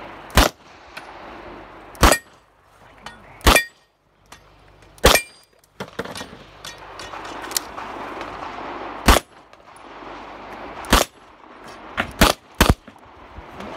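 Handgun shots on a shooting range: about nine sharp reports, irregularly spaced one to four seconds apart, with three in quick succession near the end.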